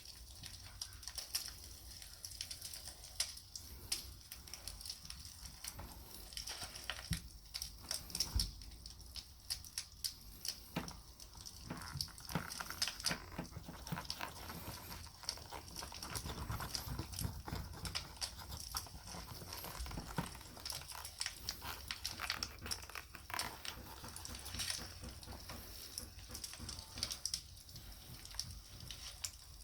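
Wood campfire crackling, with scattered sharp pops, and soft rubbing as beeswax is worked into a leather knife sheath.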